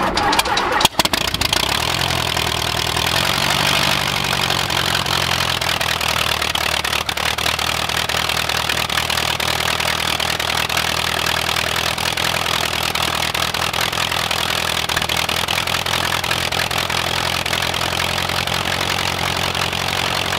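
The 125 hp Franklin air-cooled flat-four engine of a Zenith CH601XLB is running and turning the propeller. It is uneven for the first second or two, then settles into a steady idle.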